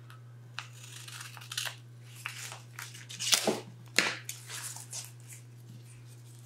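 Scissors snipping a piece of PET tape off the roll, and the thin plastic tape crinkling as it is handled and pressed onto the paper planner page, in a string of short crisp bursts.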